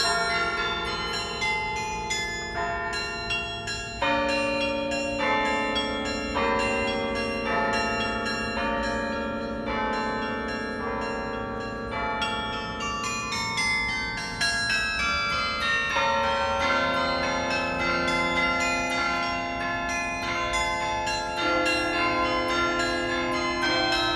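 Carillon bells being played as music: a melody of struck bell notes over lower held bell tones, each note ringing on into the next. The passage gets louder about four seconds in.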